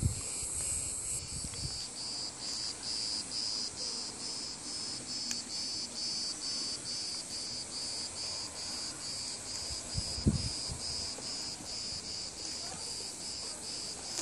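Insects chirping in a steady rhythm of about two to three high-pitched pulses a second, with a higher, more even insect hiss at first. A brief low thump about ten seconds in.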